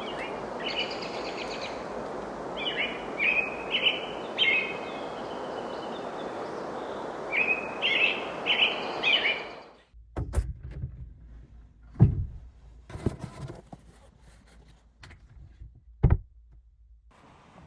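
Birds chirping in short phrases over a steady rushing noise for about ten seconds, which then cuts off abruptly. A few scattered knocks and dull thuds follow.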